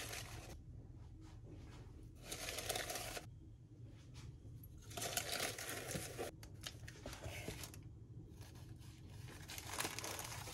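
Baking parchment lining a cake tin rustling and crinkling in several short spells as hands press rolls of dough into the tin.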